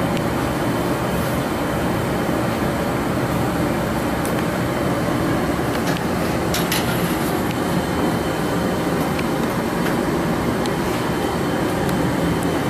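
Steady roar of a glassblowing studio's gas-fired glory hole and furnace, with a few faint clicks.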